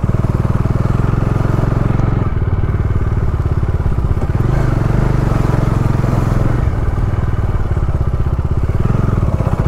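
Bajaj Dominar 250 motorcycle's single-cylinder engine running steadily while being ridden, a rapid even pulse of firing strokes.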